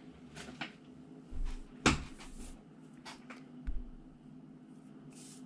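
Scattered light clicks and knocks of tools and parts being handled on a metal radio chassis, the sharpest about two seconds in, over a faint steady hum.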